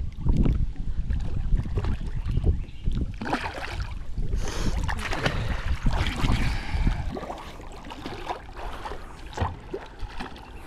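Lake water splashing and sloshing against a camera held right at the water surface, with a low rumble and irregular bursts of splashing in the first few seconds and again around the middle, easing off near the end.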